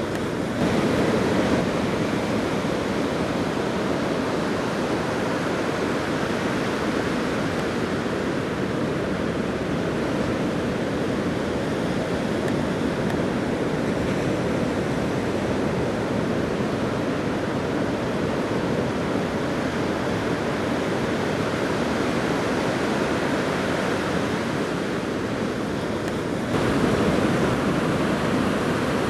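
Ocean surf breaking, a steady rush of noise that steps up in loudness briefly about a second in and again near the end.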